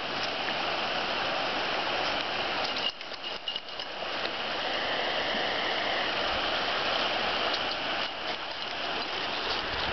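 Shallow river flowing over stones and gravel: a steady rushing and babbling of water.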